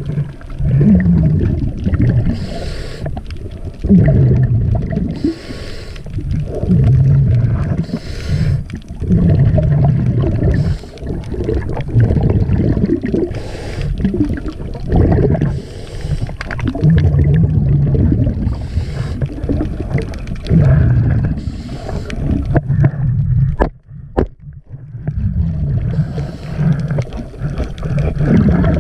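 Scuba diver breathing through a regulator underwater: rushes of exhaled bubbles gurgling and rumbling, one breath every two to three seconds, with a brief pause late on.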